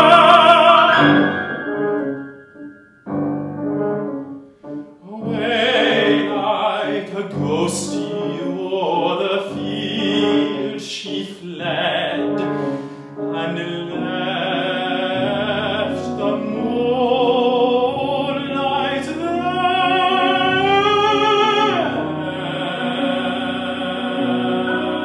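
Male classical singer singing an art song with vibrato, accompanied by grand piano. After a short hush a few seconds in, the voice comes back and holds long notes, climbing to a higher phrase near the end.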